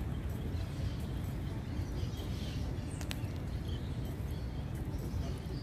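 Outdoor park ambience: a steady low rumble with faint bird chirps, and one sharp click about three seconds in.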